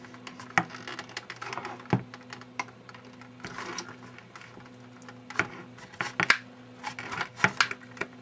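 Plastic back cover of a Fitbit Aria scale being pried open with a plastic pry tool: irregular sharp plastic clicks and snaps as the pressed-in pins let go of their towers, the loudest snaps coming in the second half, over a faint steady hum.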